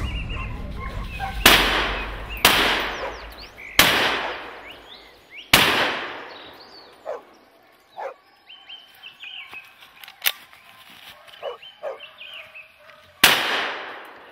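Hunting rifle shots in forest, each followed by a long echoing tail: four shots in the first six seconds, a shorter sharp crack about ten seconds in, and one more loud shot near the end.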